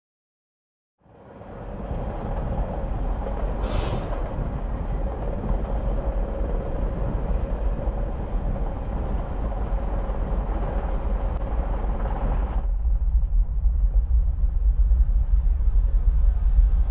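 Commuter train running, a steady rumble heard from inside the carriage, fading in about a second in, with a brief hiss near four seconds. About thirteen seconds in the higher part of the noise cuts off suddenly, leaving a deep low rumble that grows louder.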